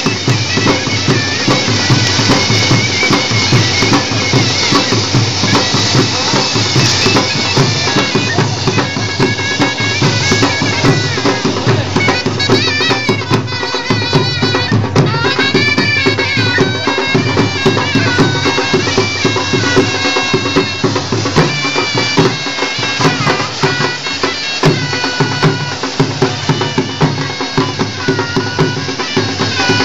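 Bagpipes playing a traditional folk tune over a steady drone, with drums beating along.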